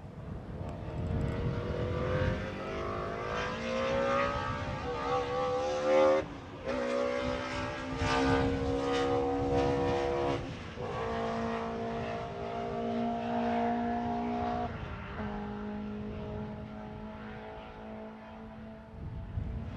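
BMW M3 E30 DTM race car's naturally aspirated four-cylinder engine accelerating hard, its pitch climbing, with brief breaks for gear changes about six and eleven seconds in and a drop in pitch about fifteen seconds in, then fading near the end.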